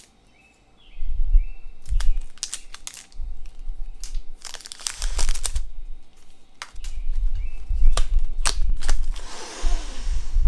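Cellophane wrapper on a new deck of playing cards crinkling and crackling as the deck is handled and the wrapper worked open, with a heavier spell of crinkling near the end. A low rumble runs underneath.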